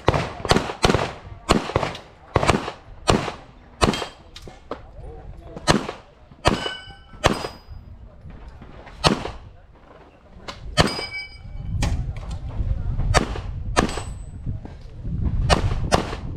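A fast string of pistol shots fired during an IPSC competition stage, sometimes in quick pairs, with steel targets ringing with a clang after several hits. A low rumble runs under the shots in the last few seconds.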